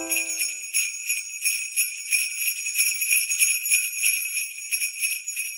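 Jingle bells shaken in a quick, steady rhythm, as the last low chord of a keyboard dies away in the first second.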